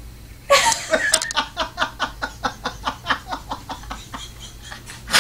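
A person laughing hard in a long run of quick, pulsing ha-ha bursts, about four or five a second, starting about half a second in.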